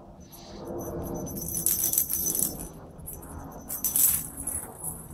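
A plastic cat ball with a bell inside jingling as it is rolled across a concrete floor, in two bursts, the louder about four seconds in.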